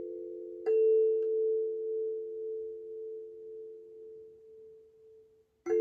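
Hokema Sansula (a kalimba mounted on a small round frame drum) plucked: about a second in a low pair of notes is struck and rings on for several seconds with a slow wavering swell, fading almost to nothing. Near the end a fresh pair of notes is plucked.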